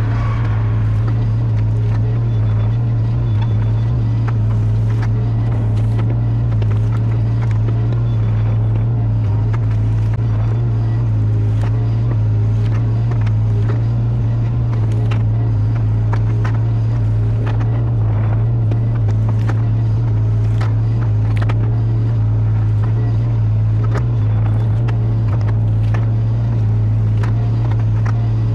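Caterpillar 305 mini excavator's diesel engine running steadily with a strong low drone, heard from the operator's seat. Irregular clicks and knocks come through as the rake on the arm drags through brush.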